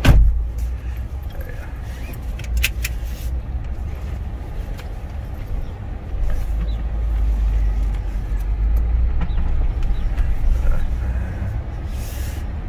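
Car driving, with a steady low engine and road rumble. There is a sharp knock right at the start and a few faint clicks later.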